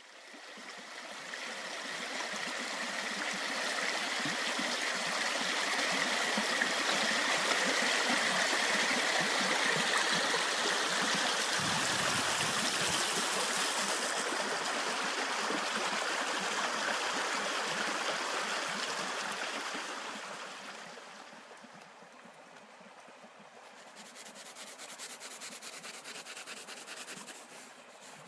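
A small woodland stream running over stones: a steady rush of water that fades in at the start and falls away about three quarters of the way through. Near the end, faint scratching of drawing on paper.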